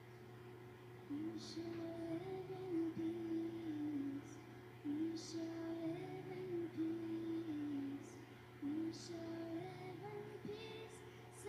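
A young girl singing a slow solo in three phrases of long held notes, with short breaks between them, over a soft low accompaniment.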